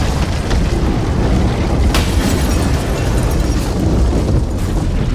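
Explosion sound effect: a loud, continuous low rumble with a sharp crack about two seconds in.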